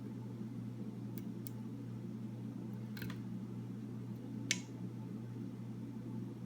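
A few sharp metallic clicks of lock picking tools working the pins of a Master Lock No. 3 padlock, the loudest about four and a half seconds in, over a steady low background hum.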